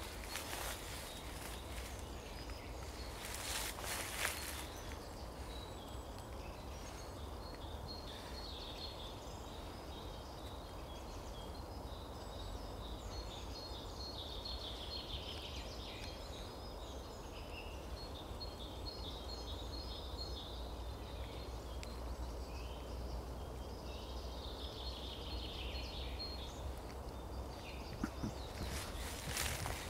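Outdoor ambience: small songbirds chirping and twittering in the background, with short falling trills now and then, over a steady low rumble. A brief rustle about four seconds in and again near the end.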